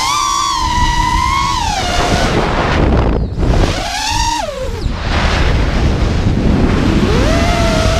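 Brushless motors of a GEPRC LX5 FPV quadcopter whining in flight, the pitch sliding up and down with the throttle, over a low rush of wind on the microphone. About three seconds in the whine drops away briefly, then climbs and falls again; it rises once more near the end.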